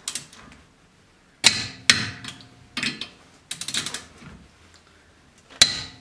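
Socket wrench with a 19 mm socket working the lug nuts of a wheel spacer: sharp metal clicks and clinks as the socket goes onto and turns the nuts, with a short run of quick ratchet ticks about three and a half seconds in.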